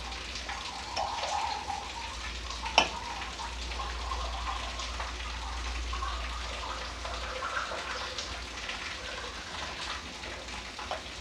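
Hand mashing and mixing a moist sattu filling, roasted gram flour with mustard oil and lemon juice, in a steel bowl: a steady soft squishing rustle, with one sharp click about three seconds in.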